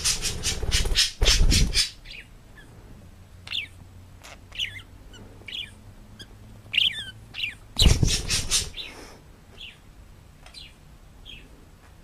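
Parrot squawking loudly in two bursts at the start and again about eight seconds in, with short chirps and whistles in between.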